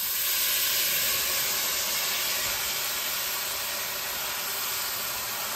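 Wet soaked sago pearls (sabudana) hitting hot oil in a stainless steel pan, sizzling with a steady hiss that eases slightly; the water still in the soaked pearls is spitting in the hot oil.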